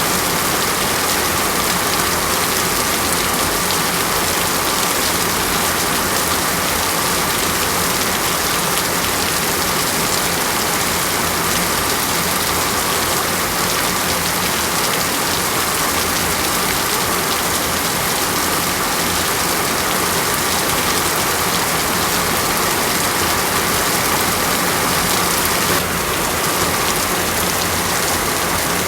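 Steady rain falling on a surface: a continuous, even hiss of many drops, with a slight dip in level near the end.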